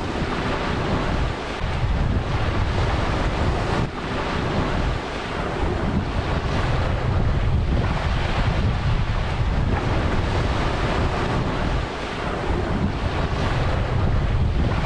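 Ocean waves breaking and washing ashore in a steady wash with slow swells, and heavy wind buffeting the microphone as a deep rumble.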